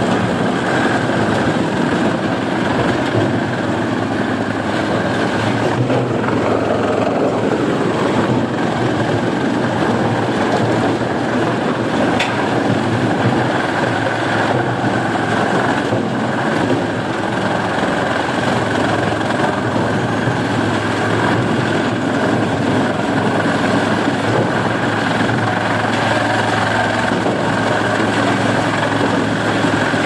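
Yulong TR-A80130 wood chipper running steadily with a loud, continuous mechanical noise as its chain conveyor feeds logs and branches into the feed roller.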